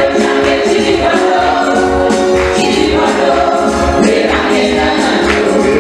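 Gospel worship choir singing an upbeat praise song with a live band: several voices together over a steady drum beat, with tambourine.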